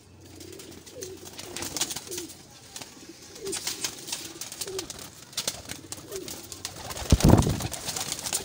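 Domestic pigeons cooing over and over, with clattering wing flaps as birds flutter about the aviary. A brief loud low burst comes about seven seconds in.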